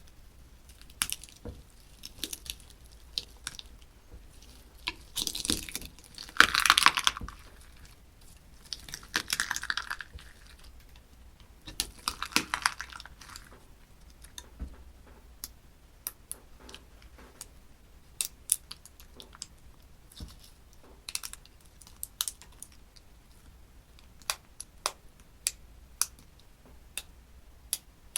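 Slime being worked by hand close to the microphone: many sharp sticky clicks and small pops of trapped air, with a few longer crackling, squishing stretches in the first half.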